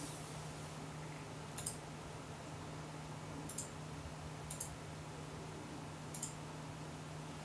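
Cat licking its fur while grooming: a few faint, sharp, wet clicks spaced one to two seconds apart, over a steady low hum.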